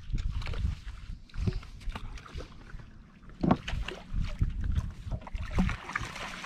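Low rumble and a few short knocks on a bass boat as a fish is scooped up in a landing net, with water splashing near the end.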